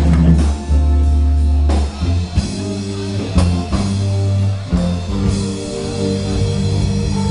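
Live rock band playing: drum kit and electric guitar over deep, held bass notes, with sharp drum hits.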